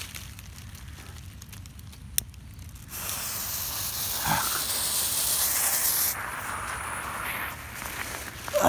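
A lighter clicks once about two seconds in; about a second later the fuse of a green smoke bomb catches and hisses loudly as it sparks. After about three more seconds the hiss turns duller as the smoke pours out.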